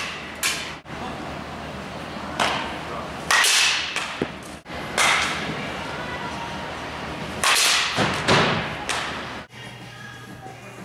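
Softball bat striking pitched balls, a sharp crack every few seconds, each trailing off in the echo of a large indoor hall.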